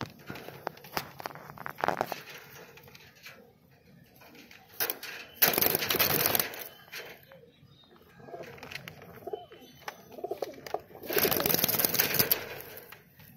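Domestic pigeons cooing, with two loud bursts of wing flapping, about five seconds in and again near the end, and scattered light clicks in the first couple of seconds.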